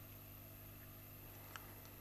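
Hot-air rework station running with a steady low hum and a faint high whine while desoldering a MOSFET from a laptop motherboard; a small click about one and a half seconds in.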